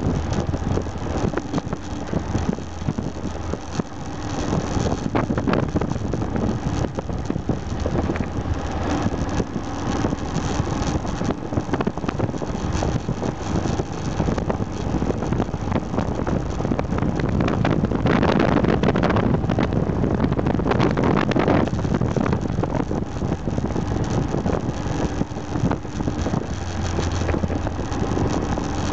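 Aprilia Pegaso 650 Strada's single-cylinder engine running at road speed, largely buried under wind rushing over the microphone; the wind gets louder about two thirds of the way through.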